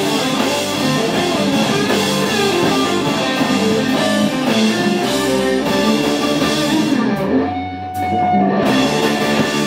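Live rock band playing loud: electric guitars, bass guitar and drum kit. About seven seconds in the drums stop for about a second while a single guitar note rings on, then the full band comes back in.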